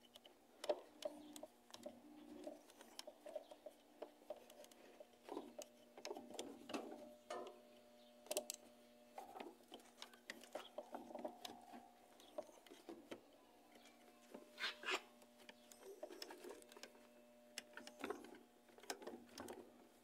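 Faint, irregular clicks and rubbing from hands handling a washing machine's thin pressure-switch air hose and the plastic and metal around it, with a faint steady hum underneath.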